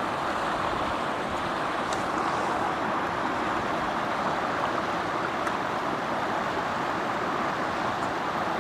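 Fast, shallow river rushing steadily over stones, an even wash of white-water noise, with a couple of faint clicks.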